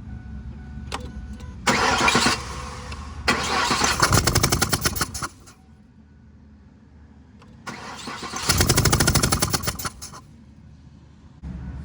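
Ford 4.6 L V8 turned over by the starter in short bursts, three times, each lasting a second or two, with a spark plug out of a coolant-filled cylinder. The mechanic suspects the coolant comes from a leak at the intake manifold and thermostat crossover.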